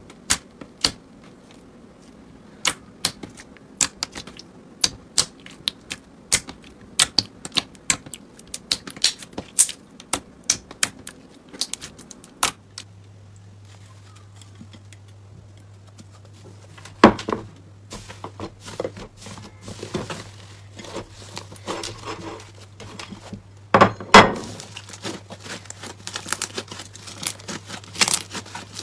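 Slime being played with by hand. First, fingers pressing into clear, glossy slime make sharp separate clicks and pops, about one or two a second. Then thick green slime is squeezed and pulled, with wetter squishing and two loud pops, over a low steady hum.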